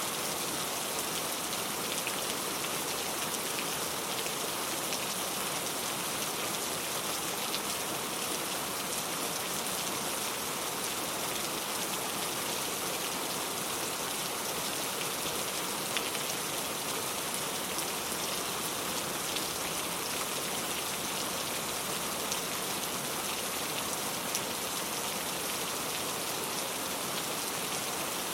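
Steady rain falling, an even hiss of drops on a surface with occasional louder individual drops.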